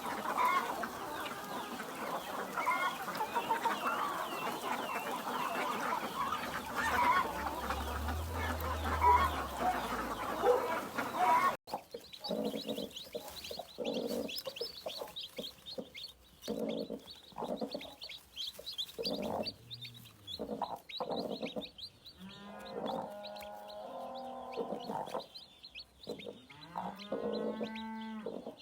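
Chickens calling: a dense jumble of overlapping calls, then after a cut about twelve seconds in, a hen's repeated low clucks over steady high peeping of chicks, with two longer drawn-out calls near the end.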